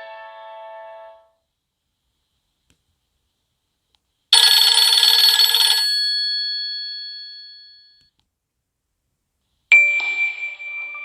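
Nokia N73 (SoftBank 705NK) ringtones and alert tones played one after another. A melody's last notes fade out, a short, dense chiming alert sounds about four seconds in and rings away, and another electronic melody begins near the end.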